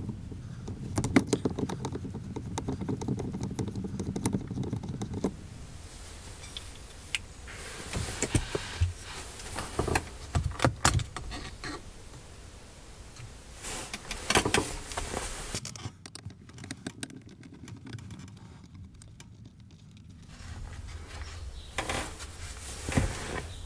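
Gear knob being unscrewed and the gear selector cover plate and trim of a Rover P5B lifted off by hand: small rattles and clicks of loose metal and plastic parts, denser over the first few seconds, then separate clicks and knocks.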